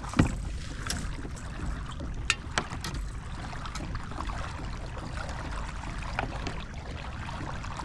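Water lapping and trickling against a kayak's hull over a steady low rumble, with a few small, sharp clicks and knocks from gear on the boat.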